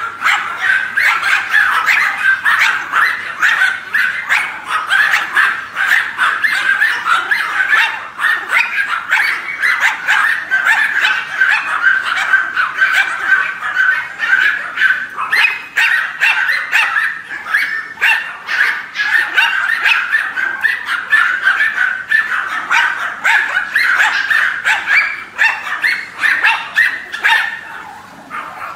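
Dozens of Pomeranians barking and yipping all at once in a dense, unbroken chorus, which thins out briefly near the end.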